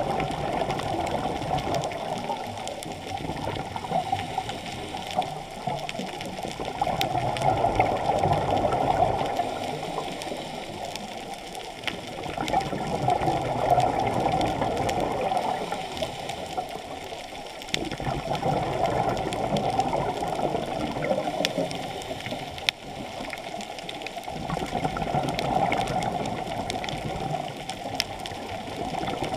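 Scuba breathing heard through an underwater camera housing: the regulator and exhaled bubbles make a muffled rushing that swells and fades about every six seconds, with small clicks here and there.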